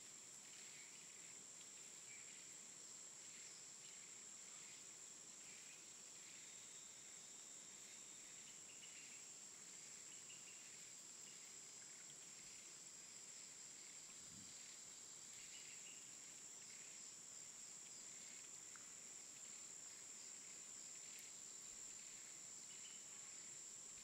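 Near silence with a faint steady high-pitched whine.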